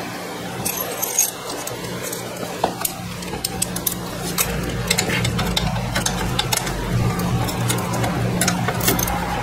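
Metal hand tools clinking: a ratchet with a 12 mm socket being handled and fitted to a bolt on a scooter swing arm, giving scattered irregular clicks over a steady low hum.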